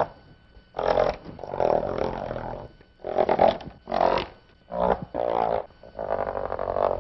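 Chalk scraping on a blackboard as lines are drawn: about eight separate strokes, each lasting under a second.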